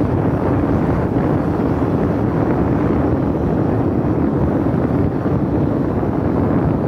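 Wind rushing over the microphone of a phone carried on a moving open vehicle, together with the steady drone of the vehicle running along the road.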